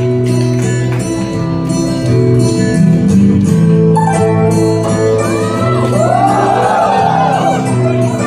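Black metal band playing live through a club PA, recorded from the audience: distorted guitars and bass hold long chords over drums and cymbals. About four seconds in, a higher layer of swooping, gliding tones joins the music.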